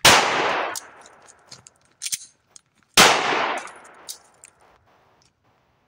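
Two shots from a Ruger Max 9 Pro 9mm micro-compact pistol, one right at the start and one about three seconds later, each ringing out with an echo. A few light metallic clicks of the pistol being worked come between them, during a stoppage that the shooter puts down to a possibly hard primer.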